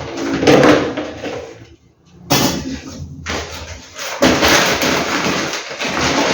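Groceries being handled: rustling of plastic bags and produce being moved and set down, in several noisy spells with a short lull about two seconds in.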